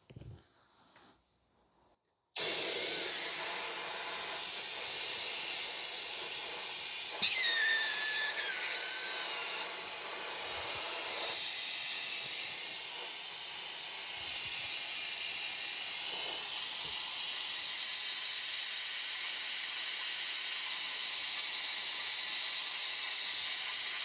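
Air-powered Mityvac vacuum brake bleeder hissing steadily as it draws brake fluid out through a rear caliper's bleeder, starting suddenly about two seconds in. A short falling squeal comes through about seven seconds in, and the hiss thins out about eleven seconds in.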